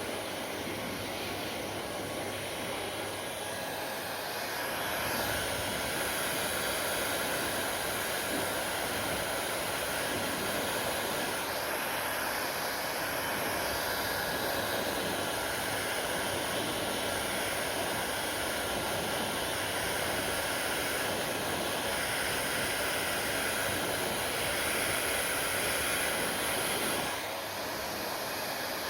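Hair dryer blowing steadily, getting louder about five seconds in and dropping back near the end.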